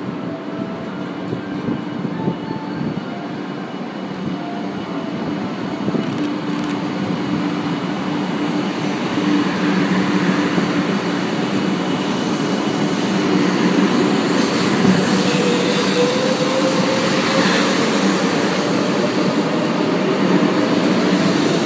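500 Series Shinkansen pulling out of the station and accelerating. The traction motors whine with a tone that rises steadily in pitch through the second half, while the running noise grows louder.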